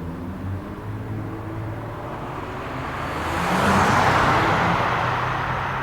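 Sports car engine running with a low steady note, then a car drives past: its sound swells about three to four seconds in and begins to fade near the end.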